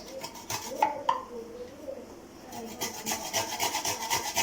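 Fresh ginger being grated by hand on a small kitchen grater: quick, even rasping strokes, several a second, starting about two and a half seconds in, after a couple of light clicks about a second in.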